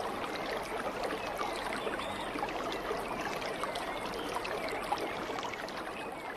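Steady rush of running water, with a few faint high chirps, starting to fade near the end.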